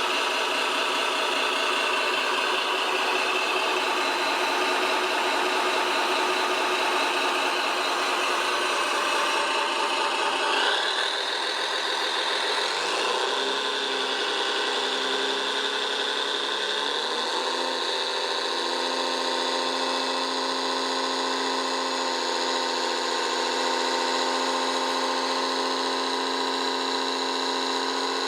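Radio-controlled model construction machine running with a steady, engine-like hum. Its pitch shifts about ten seconds in and moves around for several seconds before settling again.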